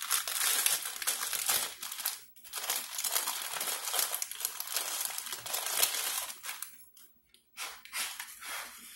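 Close, continuous crinkling and rustling from handling, with a brief break about two seconds in, dying away about seven seconds in.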